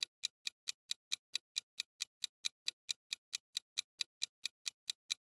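Clock-style ticking sound effect for a quiz countdown timer: short, even ticks at about four to five a second, counting down the thinking time before the answer.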